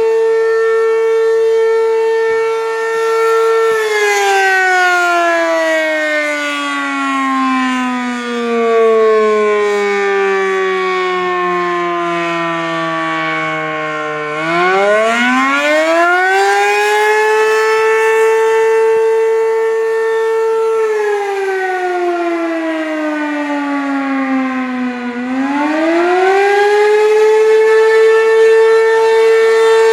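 ACA P-15 civil defense siren sounding loudly. It holds a steady tone, winds down in pitch over about ten seconds, climbs back up and holds again, then dips and rises once more near the end. This rising-and-falling pattern is the kind used for an attack signal.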